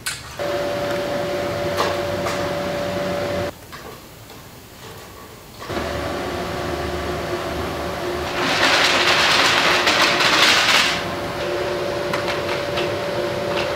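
Machinery in a rolling-shutter manufacturing shop running with a steady hum. It stops about three and a half seconds in and starts again about two seconds later. A loud hissing noise rises near the middle and lasts about two and a half seconds.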